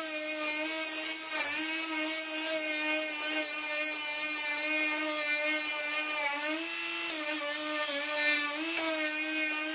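Electric power tool motor running at a steady high whine, its pitch sagging briefly about four times as it is loaded against the work.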